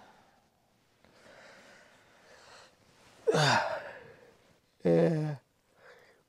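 A man's wordless waking sounds: a loud breathy sigh that falls in pitch about three seconds in, then a short, low voiced groan about five seconds in.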